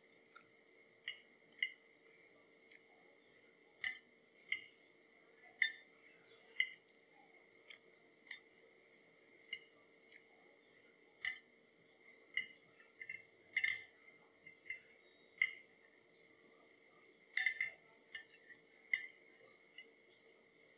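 A fork clinking and scraping on a dinner plate while spaghetti is eaten: short sharp clinks at irregular intervals, one or two a second, with small clusters. Underneath runs a faint steady hum.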